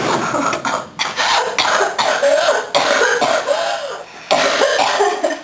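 A woman's coughing fit: a long run of coughs in quick succession, with short pauses about a second in and again about four seconds in.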